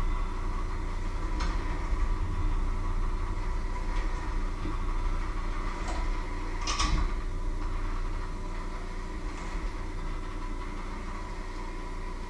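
Electric hand mixer running steadily, its beaters whirring through a bowl of batter-like mixture, with a few sharp clicks as they knock the bowl, the loudest about seven seconds in.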